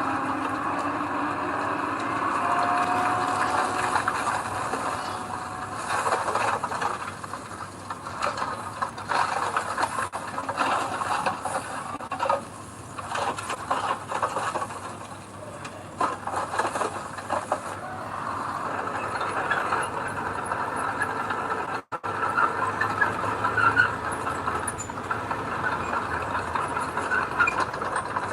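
Heavy earthmoving machinery running and working, with a steady engine sound and repeated rattling and clanking of metal.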